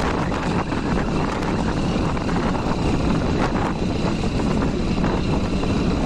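Wind buffeting the microphone: a steady low rushing noise.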